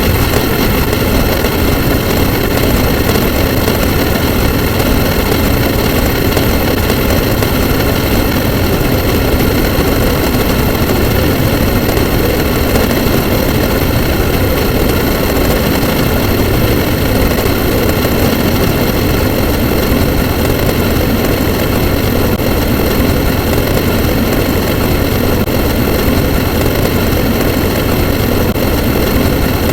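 A loud, steady engine drone with several constant whining tones above it, unchanging throughout.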